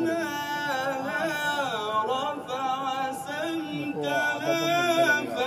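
A male qari's melodic Quran recitation in the Egyptian style: one voice drawing out long, ornamented phrases that wind up and down in pitch.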